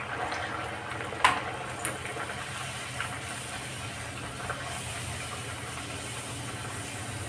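Urad dal kachori deep-frying in very hot oil in an iron kadai: a steady sizzle of bubbling oil, with one sharp click about a second in.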